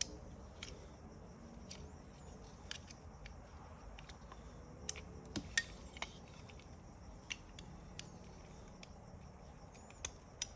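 Small metal parts and tools clicking and tapping as a seatbelt pretensioner is taken apart by hand: a dozen or so short, sharp clicks at irregular intervals over a faint steady background.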